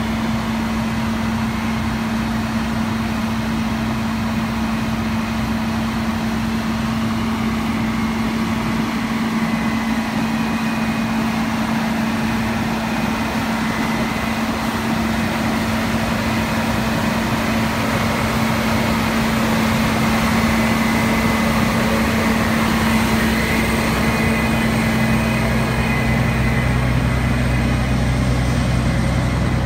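Fire engines' diesel engines running steadily, a constant loud hum. A deeper engine note comes in near the end.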